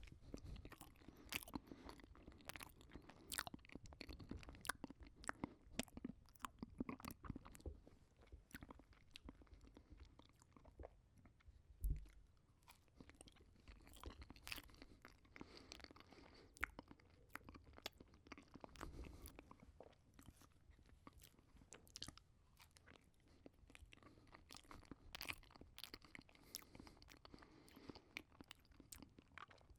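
Close-up sound of a person chewing a banana with the mouth near the microphone: quiet, irregular wet clicks and smacks of the mouth. There is one louder, deeper knock about twelve seconds in.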